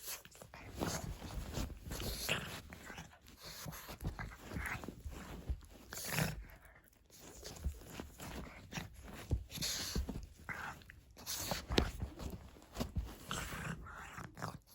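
Pug puppy chewing and mouthing a person's hand, with irregular small nibbling clicks and the dog's breathing and snuffling sounds.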